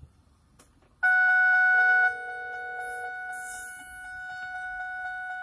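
Vehicle seatbelt warning alarm sounding a steady high tone that starts about a second in. It is loud for the first second, then drops to a quieter, steady level.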